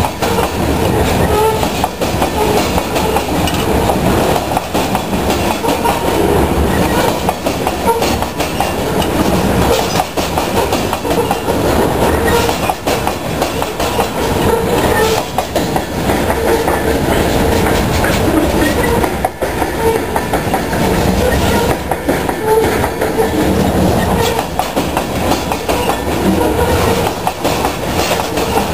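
Freight train of loaded covered hopper cars rolling past close by: a steady heavy rumble with wheels clicking over the rail joints throughout.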